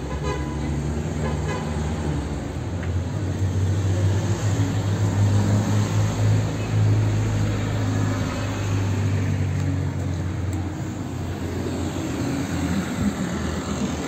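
Road traffic with a large vehicle's engine droning low, building up to its loudest midway and then easing off.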